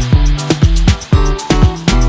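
Background music with a steady, punchy beat in a funk or Afrobeat style.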